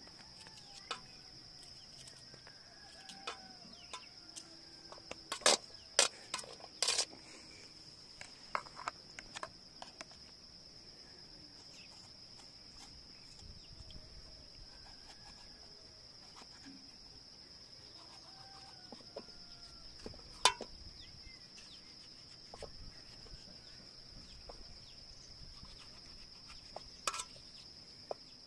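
Steady high-pitched insect chorus, with a few sharp knocks or clicks: a cluster about five to seven seconds in and single ones later on.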